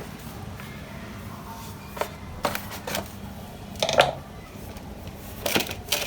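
Scissors cutting through plastic pigeon netting: a few sharp, irregularly spaced snips, the loudest about four seconds in.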